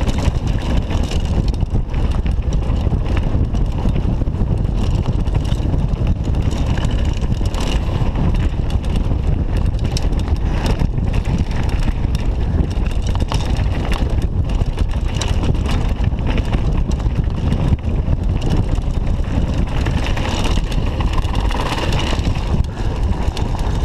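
Mountain bike riding fast down a dirt trail: wind rushing over the chest-mounted camera's microphone, with tyres running over loose gravel and the bike rattling in a steady run of small knocks.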